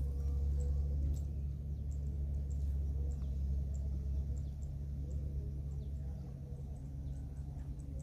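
Outdoor background ambience: a low steady rumble with faint, short high-pitched chirps scattered over it, more of them in the second half.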